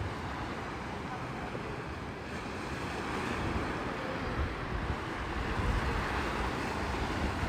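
Sea surf washing onto the beach, swelling about two-thirds of the way through, with wind buffeting the microphone.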